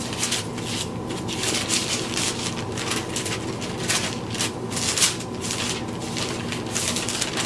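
Bible pages being flipped through by hand, a run of quick, irregular paper rustles as the pages are leafed in search of a passage.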